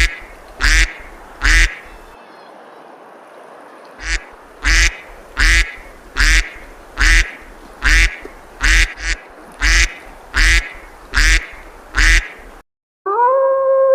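Duck quacking in a loud run of single quacks about every 0.7 seconds, with a pause of about two seconds early in the run. Near the end the quacking cuts off and a long, steady, howl-like call begins.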